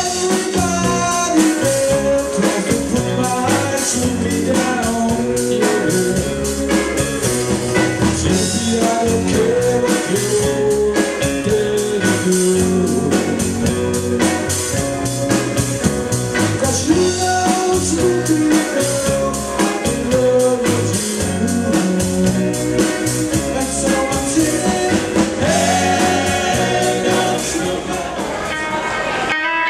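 Live beat and rock-and-roll cover band playing a song: electric guitars and a drum kit with a steady beat, and a man singing lead at the microphone. The music breaks off abruptly near the end.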